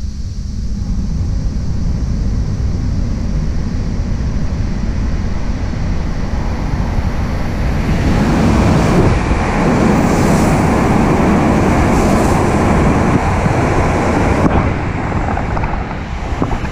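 A Hokuriku Shinkansen train (E7/W7 series) passes through the station at speed. A low rumble builds as it comes out of the tunnel and swells into a loud rush of wind and wheel noise as it goes by, then falls off near the end.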